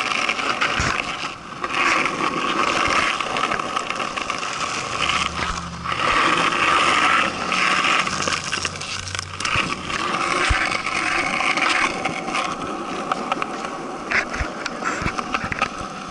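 Skateboard wheels rolling over rough, cracked asphalt and concrete: a steady gritty rumble with occasional sharp clicks.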